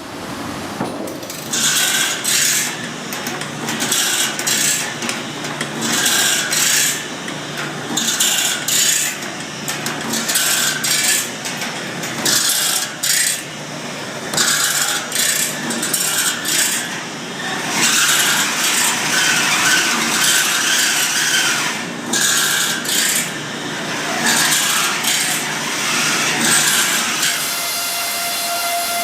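Saw-sharpening work on a sawmill saw's steel teeth: repeated rasping, grinding strokes, each about a second long, over a low steady machine hum. Near the end the strokes stop and a steady hiss takes over.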